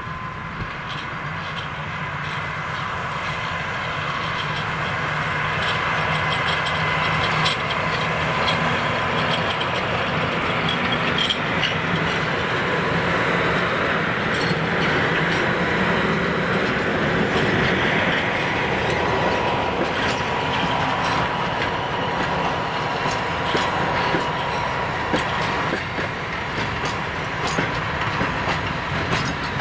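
A freight train hauled by a PKP electric locomotive passing close by, its flat wagons' wheels clacking over the rail joints, with a steady high tone running under the noise. It grows louder over the first few seconds as the train comes near, then stays loud as the wagons roll past.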